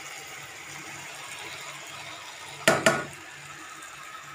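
Two sharp knocks of a kitchen utensil against a kadhai, about a fifth of a second apart, near three seconds in, over a faint steady hiss, as cooked rice is added to tomato masala in the pan.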